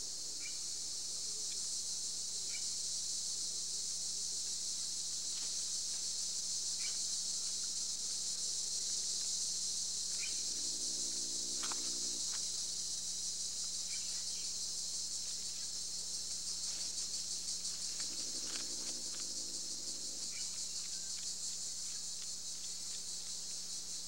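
Steady, high-pitched insect chorus, cicada- or cricket-like, with faint scattered chirps and two brief low, pitched sounds about eleven and nineteen seconds in.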